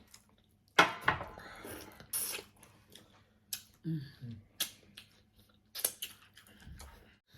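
Close-up eating sounds: chewing and wet mouth smacks with short sharp clicks, the loudest burst about a second in. A brief low hum falls in pitch just past the middle.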